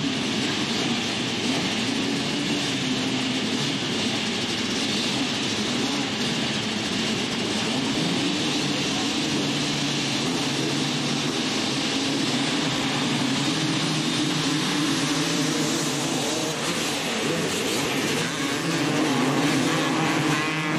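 A field of motocross bikes running together at the starting line, many engines idling and revving in waves. Near the end the engines rise together as the pack launches off the start.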